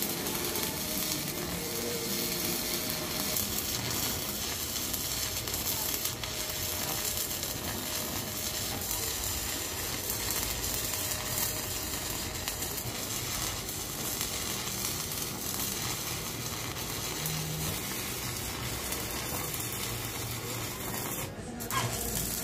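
Stick (arc) welding on steel bars: the steady crackle and sizzle of the electrode arc, with a short break near the end.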